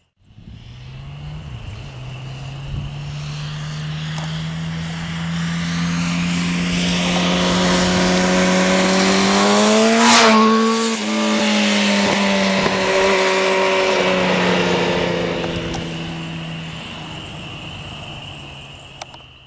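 A 2006 Yamaha R1's inline-four engine, running at steady speed as the sportbike passes. The engine note grows louder as the bike approaches and is loudest about halfway through, where its pitch drops as it goes by. It then fades away.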